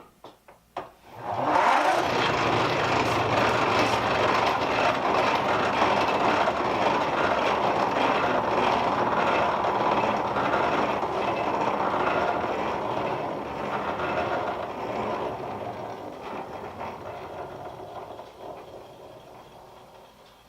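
A hand-crank bench grinder spun up by its crank, a few clicks and then a steady, loud gear whir that slowly dies away over the last several seconds as it slows.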